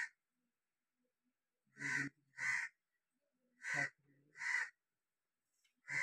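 Crow cawing: a series of short, harsh caws, mostly in pairs, about five in all with gaps of silence between.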